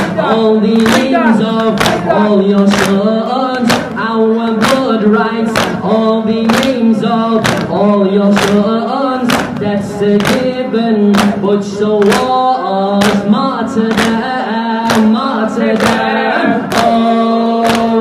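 Male reciter singing an Arabic latmiyah lament into a microphone, with the congregation joining in chorus. Sharp strikes keep a steady beat, about one and a half a second, typical of the mourners beating their chests in time.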